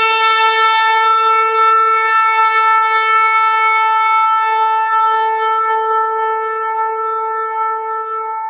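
Shofar blown in one long held note, steady in pitch and rich in overtones, slowly weakening toward the end.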